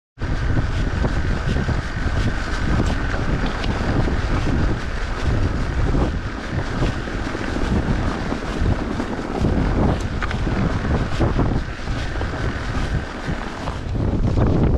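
Wind rushing over the camera microphone, with tyres rolling and crunching over snow and the bike rattling on the bumps as an electric mountain bike rides a snowy track. A steady high whine runs through the first half and then fades. The sound changes abruptly near the end.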